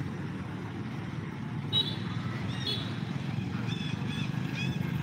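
Steady low rumble of road traffic. About two seconds in a brief knock sounds, followed by a run of short, high-pitched chirps repeating every half-second to a second.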